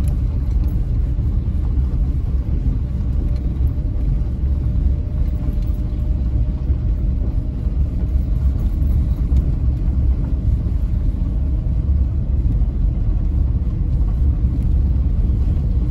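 Steady low rumble of a car heard from inside the cabin as it drives slowly, tyres rolling over gravel.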